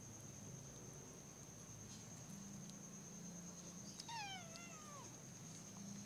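A kitten meows once, about four seconds in: a single call about a second long that slides down in pitch.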